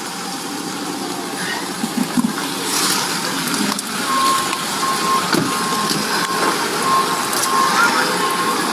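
Steady rustling and crunching noise with scattered clicks. About four seconds in, a repeating electronic beep starts, about one beep a second.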